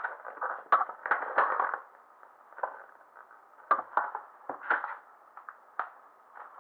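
Paper instruction leaflet being unfolded and handled, rustling and crackling, densest in the first two seconds, then a few scattered crinkles and clicks.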